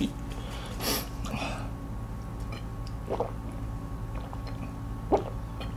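A person drinking Sprite straight from the bottle, with two short swallowing gulps at about three and five seconds in, after a brief hiss about a second in.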